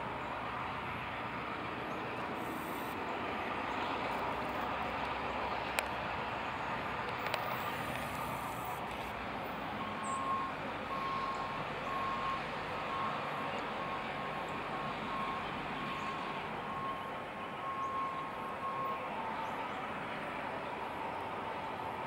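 EMD GP38-2 diesel locomotives running steadily as they approach slowly at the head of a freight train. From about ten seconds in, a faint high beeping repeats for about nine seconds.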